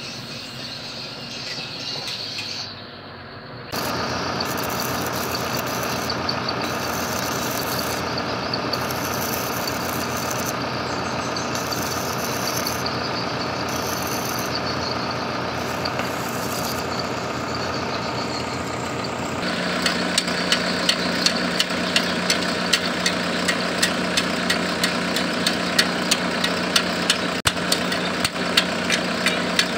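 Arc welding on a bulldozer's steel frame: the crackle and hiss of the arc stop and start over a steady engine hum. About two-thirds through it turns to a sharper crackle with regular spikes about twice a second.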